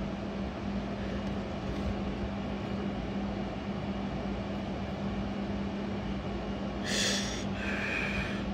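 A man smoking: two short breathy puffs of drawing in and blowing out near the end, over a steady room hiss with a low electrical hum.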